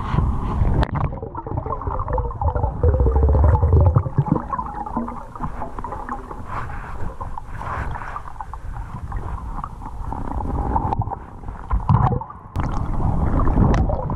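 Underwater noise heard through a camera housing beneath the river: a low rumble of moving water with faint whining tones that waver and drift in pitch.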